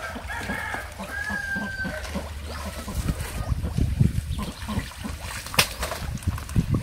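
A rooster crows in the first two seconds. Then comes splashing and sloshing in shallow muddy pond water as fish are grabbed by hand, with a sharp slap about five and a half seconds in.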